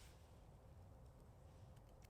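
Near silence: faint background hum with a couple of soft clicks near the end.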